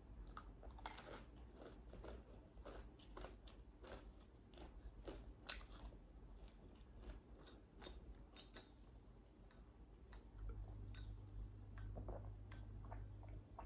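A person chewing food close to the microphone, with soft, irregular crunching and mouth clicks.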